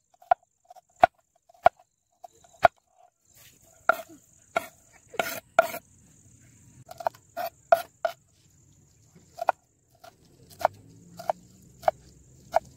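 Large kitchen knife chopping on a wooden cutting board: sharp knocks at an uneven pace, first through a red onion, then through fresh herbs, with a couple of scraping strokes about five seconds in as the diced onion is pushed off the board. A steady high insect buzz runs underneath.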